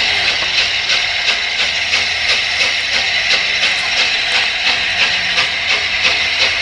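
Steam locomotive under way, its exhaust beating in a fast, even rhythm over a steady hiss of steam.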